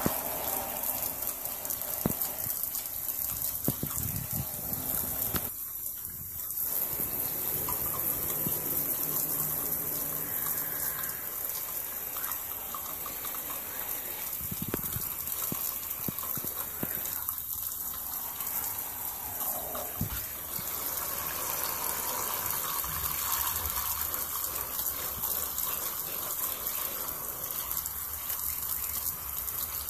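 Shower spray running steadily onto wet leather boots and splashing on the tub floor, a constant rush of water that dips briefly twice.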